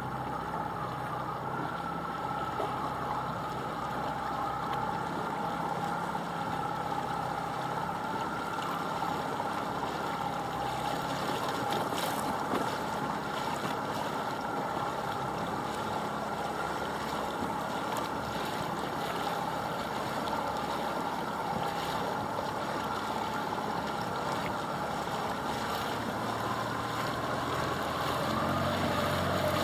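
A boat's engine running at a steady pitch, with wind and water noise; the engine picks up near the end.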